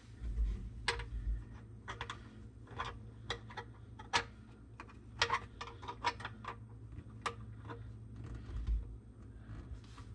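A hand tool clicking and tapping against the metal fittings of a garbage disposal as a connection under the sink is tightened: irregular sharp clicks, one to three a second, with a couple of dull thumps from handling.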